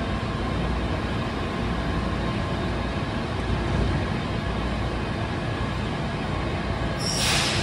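Washington Metro 3000-series railcar at the platform, its equipment running with a steady rumble, then a short sharp hiss of air about seven seconds in.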